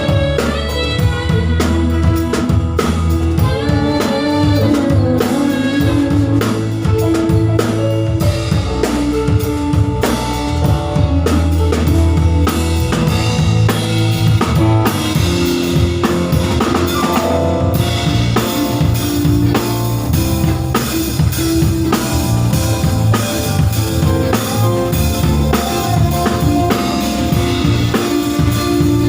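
Loud music with a drum kit beat and bass drum, played through an event sound system during a sound check.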